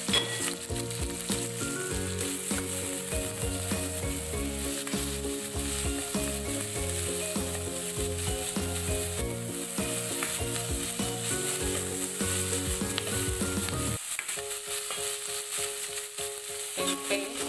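Sliced green chilies, shallots and garlic sizzling in hot oil in a metal wok, stirred with a metal ladle that scrapes and clicks against the pan.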